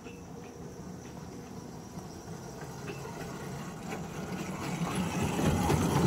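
Ride-on-scale electric locomotive approaching and passing close by, its traction motor humming and its wheels clicking on the rails. It grows steadily louder and is loudest near the end as it goes by.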